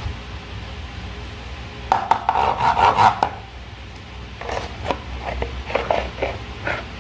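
Slime being squished and worked by hand, with sticky crackling clicks in two spells: a dense one about two seconds in, then scattered pops near the end. A steady low hum runs underneath.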